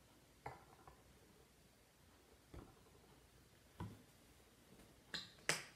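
A few light knocks and clicks as a plastic syrup bottle is handled and set down on a stone countertop, with two sharper clicks close together near the end. The room is otherwise almost silent.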